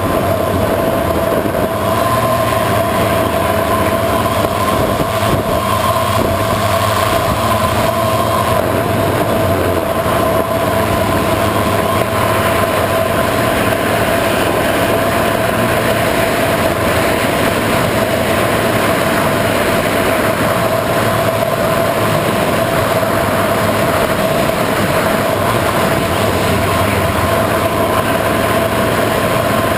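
Electric motors and propellers of an FPV multicopter heard from its onboard camera in flight: a steady, loud whine with a constant rushing noise beneath it.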